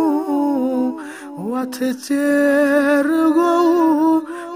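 A solo male voice singing a Kashmiri nazm unaccompanied, holding long wavering notes. About a second in there is a brief breath, followed by a short upward slide into the next note.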